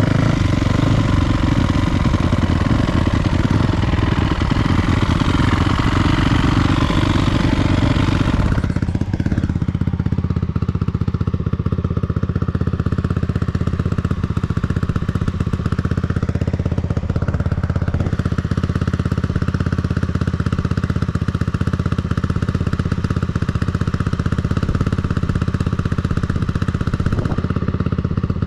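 Single-cylinder four-stroke 450 dirt bike engine running under way, with a loud rushing hiss over it for the first eight seconds or so. The hiss then drops away, leaving a steadier, lower engine note that shifts slightly in pitch a few times.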